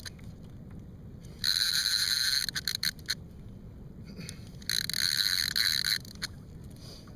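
Fishing reel buzzing in two rasping bursts of about a second each, about one and a half and four and a half seconds in, as line runs through it. A low steady hiss lies underneath.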